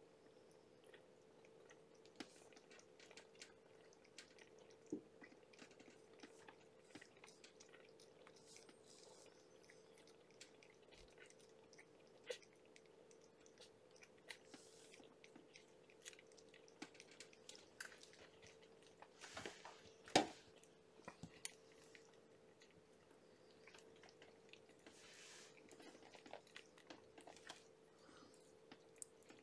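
Kittens suckling at their mother cat: faint, wet smacking and clicking mouth sounds, with a louder short knock about twenty seconds in, over a steady hum.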